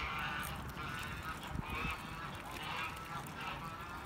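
Waterfowl at a park calling: several short calls in quick succession.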